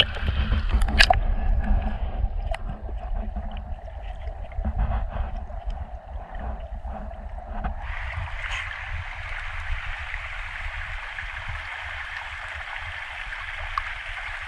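A few sharp clicks of rocks knocking together about a second in, over a low rumble of handling noise. From about eight seconds in, a steady rush of flowing river water takes over.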